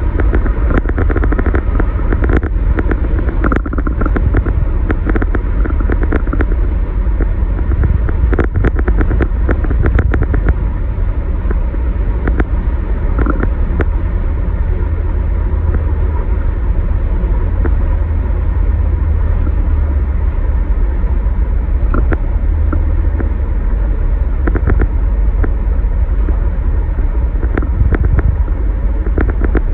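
Steady cabin noise of a car at highway speed: a continuous low rumble of tyres and engine, with scattered light clicks.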